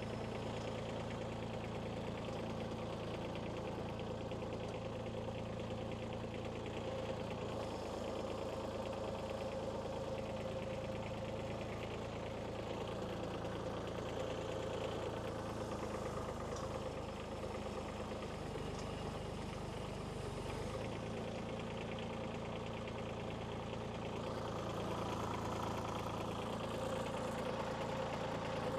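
Kubota B2301 compact tractor's three-cylinder diesel engine running steadily, with its note shifting slightly a couple of times about two-thirds of the way through.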